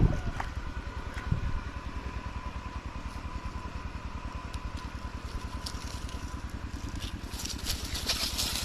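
A small engine idling steadily with an even low pulse, about eight beats a second. Light clicks and scraping come in near the end.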